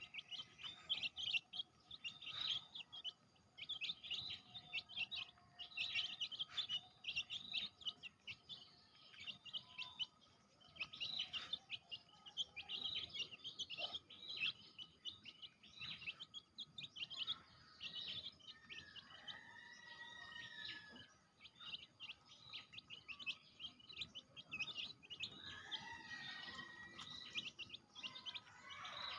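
A group of baby chicks peeping, a steady stream of short high chirps, with a few longer, arching calls about two-thirds of the way through.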